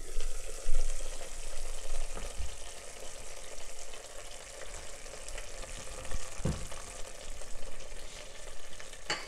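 Tomato purée simmering and sputtering in a pot with a steady sizzle while it cooks down until its raw smell is gone. There is one soft knock about six and a half seconds in.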